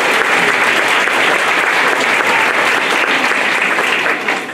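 Crowd applauding, a dense patter of many hands clapping that starts to die down near the end.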